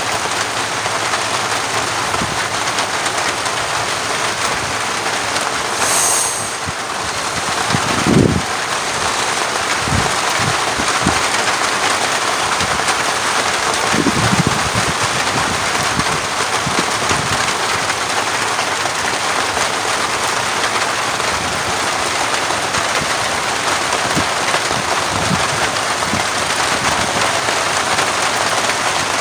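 Heavy rain falling steadily, a dense even hiss, with a few short low thumps, the loudest about eight seconds in.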